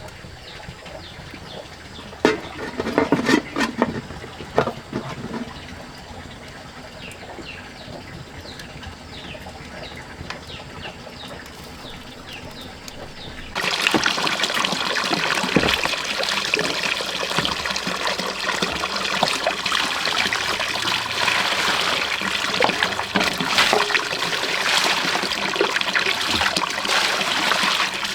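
Water trickling and splashing. It is fainter at first, with a few knocks in the first few seconds, then jumps suddenly louder about halfway through and stays a steady, dense splashing.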